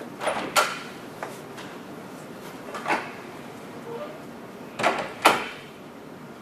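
Several short, sharp knocks and bumps: a quick pair about half a second in, single ones at about one and three seconds, and another pair around five seconds, the last of which is the loudest.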